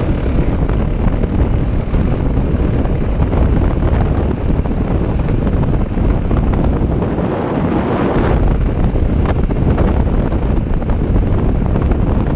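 Heavy wind buffeting on the microphone while riding a motorcycle on a gravel road, with the bike's running and tyre noise underneath as a steady rumble.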